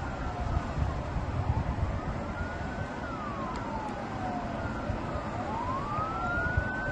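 Several emergency vehicle sirens wailing, their pitch slowly rising and falling and overlapping, over a steady low rumble.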